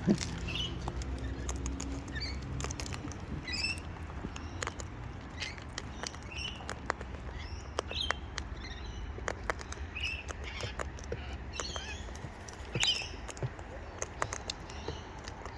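Birds feeding on scattered seed: many sharp little pecking and cracking clicks, with short high chirping calls every second or so.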